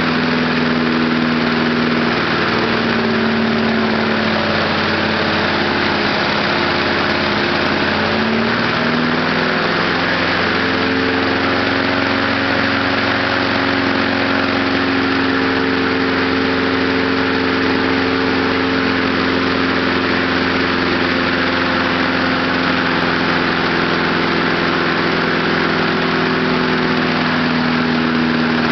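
Small lawnmower gasoline engine running steadily on a heated gasoline-vapor fuel kit instead of its carburetor. Its speed wavers a little, settling slightly higher about ten seconds in.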